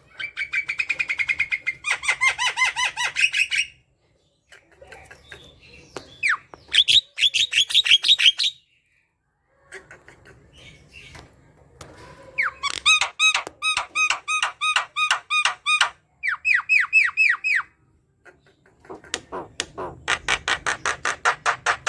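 Javan myna (jalak kebo) singing its chattering song: about six phrases of rapid, repeated pitched notes and fast trills, each one to three seconds long, with short pauses between.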